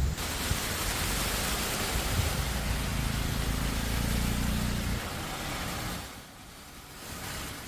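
Steady rushing noise of floodwater and rain, with the low rumble of a vehicle engine driving through the water in the middle; the noise drops away about six seconds in.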